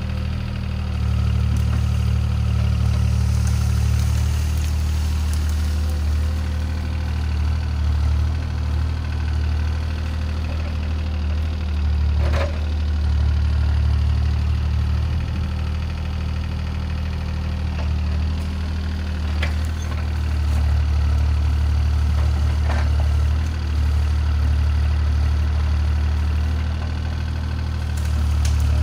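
CAT 303C CR mini excavator's diesel engine running steadily, with a few sharp knocks over it.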